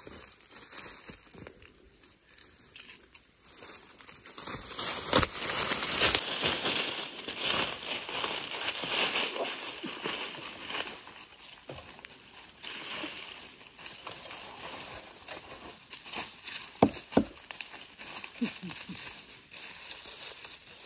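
Rustling and crinkling of dry material being handled, loudest in the first half, with two sharp clicks near the end.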